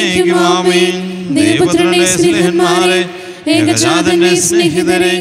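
Liturgical chant of a Syro-Malabar Mass in Malayalam, sung in three phrases with short breaks between them, over a held steady note.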